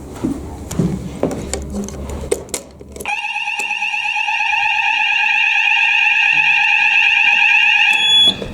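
Fire alarm sounder going off during a weekly fire alarm test: a steady tone that starts suddenly about three seconds in, after a few clicks and knocks, grows louder, and cuts off about five seconds later. A short high beep follows near the end.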